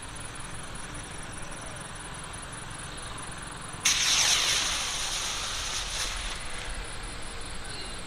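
A firework shooting up into the sky: a sudden loud, hissing whoosh about four seconds in that fades away over the next two seconds or so.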